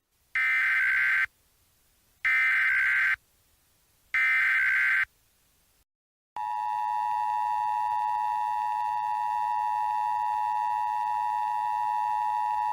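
Three Emergency Alert System SAME header data bursts, each a harsh buzzing burst just under a second long, a second or so apart. After a short pause comes the steady EAS two-tone attention signal (853 and 960 Hz together), announcing the start of a new alert.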